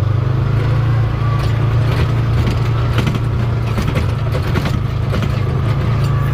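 Farm vehicle engine running steadily at a low, even pitch, with rattling and clicking from the vehicle as it moves.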